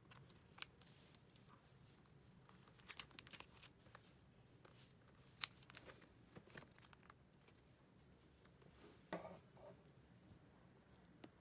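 Faint crinkling and clicking of plastic binder sleeves as a photocard is slid into a pocket and the pages are handled, with a slightly louder crinkle about nine seconds in.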